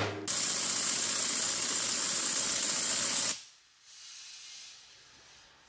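High-pressure waterjet stream cutting into a spinning wooden blank: a loud, steady hiss of the jet and spray that cuts off suddenly about three and a half seconds in, leaving only a faint hiss.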